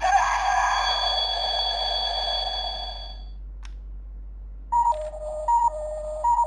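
Electronic sound effects from an Ultraman Trigger GUTS Sparklence toy with a Zoffy key. A click is followed by a shimmering synthesized chime that fades over about three seconds. Another click follows, then a repeating two-tone electronic standby loop starts near the end.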